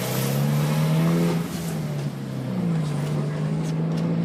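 Vehicle engine running steadily, its pitch dropping a little past halfway and then rising again, over a hiss of road or wind noise.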